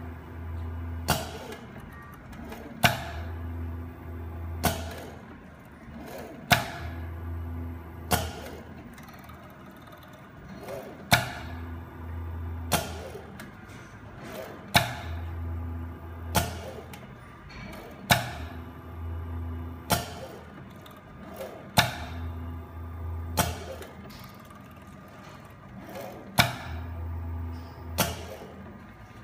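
Background music with a steady beat: a sharp hit about every one and a half to two seconds over sustained bass and chords.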